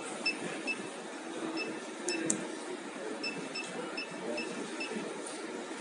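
About a dozen short high beeps from a soldering robot's teach-pendant keypad as keys are pressed to jog the X, Y and Z axes. A few come singly, then a quick run of them in the second half, with two sharp clicks about two seconds in.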